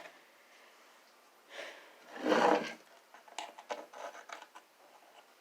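Small pieces of a broken bird feeder being handled and fitted together: a soft rub or scrape about two seconds in, then a quick run of small clicks and taps as the parts are tried against each other.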